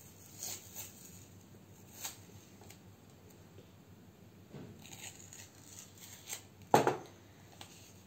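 Paper tape being picked at and peeled from its roll by hand: faint scratchy rustles, then a short, louder rip near the end as a piece comes off.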